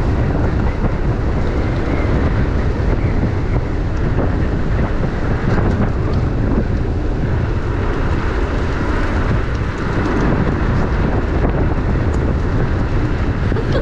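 Steady, loud wind rumble on the microphone of a body-worn camera on a moving electric motorbike, with no clear motor note.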